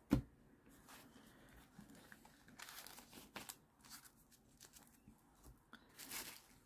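Pokémon trading cards being handled and slid against one another: a soft thump right at the start, then faint papery swishes as the cards are thumbed through, the clearest about three seconds in and again near the end.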